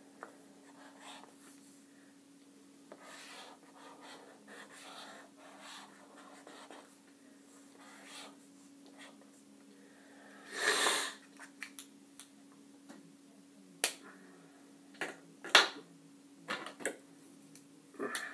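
Felt-tip marker strokes scratching faintly on paper. About ten seconds in comes a louder scuffing noise, then a run of sharp clicks and knocks, all over a faint steady hum.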